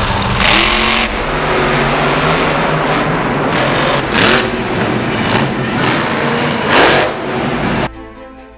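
Monster truck supercharged V8 engines revving loudly, in repeated rising surges of throttle. The engine sound cuts off abruptly near the end.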